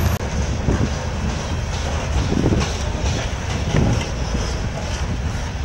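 Coal hopper cars rolling past with a steady rumble of steel wheels on rail, and repeated low clunks as the wheels pass over the rail joints.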